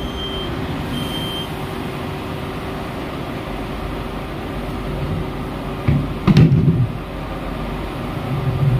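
Industrial bin washing machine running with its lid closed: a steady motor hum with a faint held tone. A loud burst of low thudding comes about six seconds in, with a smaller one near the end.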